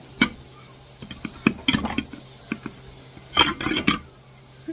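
Kitchen handling noise: a sharp knock, then a run of clicks and knocks as dishes and utensils are moved about, with a short louder noisy stretch about three and a half seconds in.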